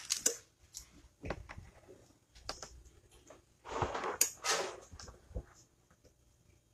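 A cotton T-shirt with a heat-transfer sheet on it rustling and sliding as it is shifted and smoothed by hand on a heat press platen, with a few light taps. A longer spell of rustling comes a little past the middle.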